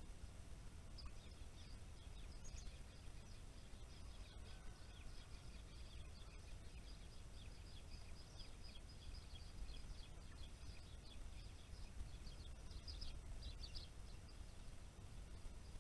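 Faint song of a small wild songbird: a long run of quick, high twittering notes that starts about a second in and stops shortly before the end, over a steady low background rumble.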